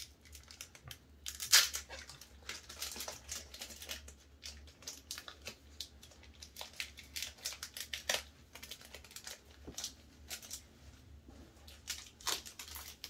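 Foil wrapper of a Pokémon Shining Fates booster pack crinkling and tearing as it is opened by hand: a run of sharp crackles, the loudest about a second and a half in.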